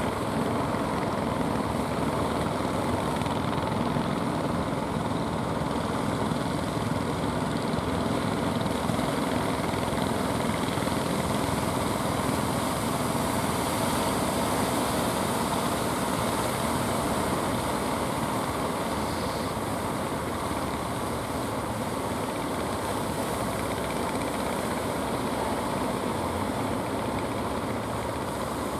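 Engines of wooden fishing boats running steadily, over an even wash of breaking surf.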